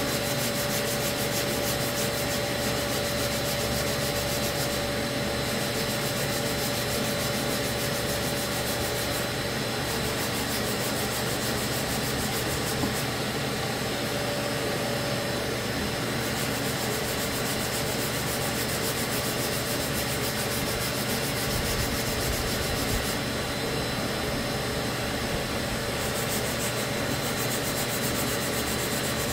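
Sanding block rubbing back and forth over cured body filler, a continuous scratchy rasp of abrasive on filler. Underneath runs a steady hum with a constant high whine.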